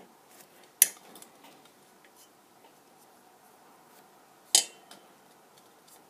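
Two sharp clinks of small hard objects being handled on a desk, about four seconds apart, with faint light ticks and rustling between.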